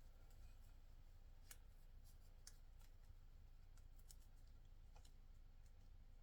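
Faint, scattered clicks and ticks over near silence: small plastic cable ties being handled and fastened around a hose and cable.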